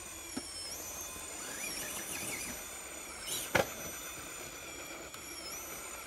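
Electric RC rock crawler's motor and drivetrain whining in high, steady tones that dip briefly as the throttle changes while it creeps up a rock slab. A single sharp knock comes about three and a half seconds in.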